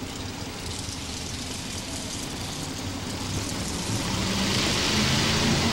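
Engine of a modified 4x4 pulling truck running, getting louder from about four seconds in.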